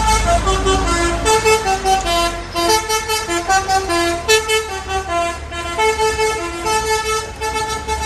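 Truck telolet basuri horn playing a quick tune of short pitched toots, note after note, over the low rumble of the truck's engine.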